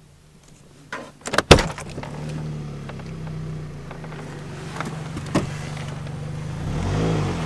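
A cluster of sharp clunks about a second and a half in, then a vehicle engine running steadily at idle, with two more knocks later and a brief swelling rumble near the end.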